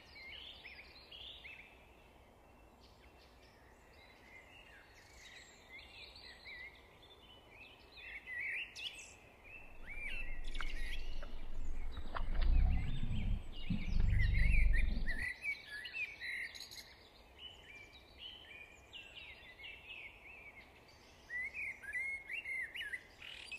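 Small songbirds chirping and trilling throughout. From about ten to fifteen seconds in comes a louder low rumble, with a sharp splash near twelve seconds as a hooked perch thrashes at the surface.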